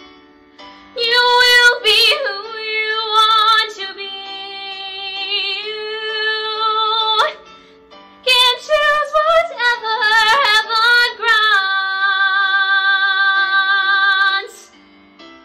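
A young woman's solo singing voice holding long, wavering notes with vibrato, broken by one short breath pause partway through; the last held note ends near the end.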